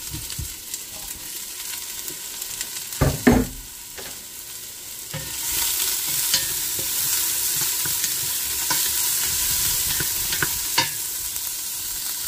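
Chopped onion, garlic and ginger sizzling in a little oil in a stainless steel pot, stirred with a wooden spatula that scrapes and taps against the pot. There is a louder knock about three seconds in, and the sizzle grows louder from about five seconds in.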